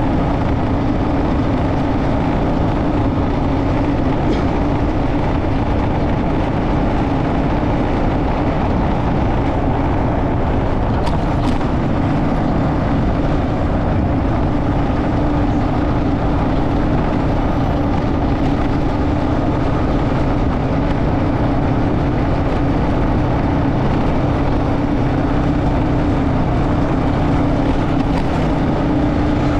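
Motorcycle running at a steady cruise on the road, with its engine hum and heavy wind rumble holding level throughout.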